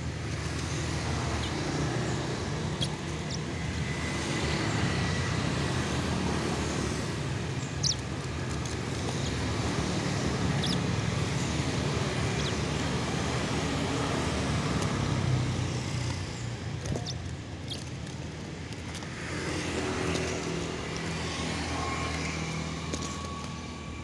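Steady low rumble of road traffic that swells and eases, with a few faint, very brief high ticks over it.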